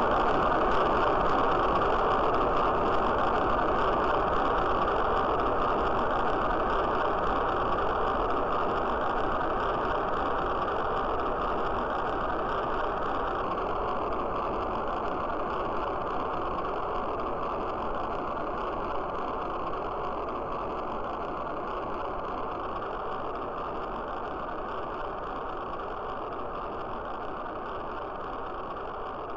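Spaceship take-off sound effect: a steady, noisy rocket-engine rush that slowly fades away.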